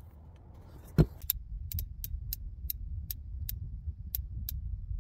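A heavy thump about a second in, then a run of about ten sharp metallic clicks at uneven spacing. The clicks come from the cylinder of a Ruger Bearcat .22 LR single-action revolver being turned by hand with the loading gate open, clicking as each chamber indexes while the gun is checked to be unloaded. A low wind rumble on the microphone runs underneath.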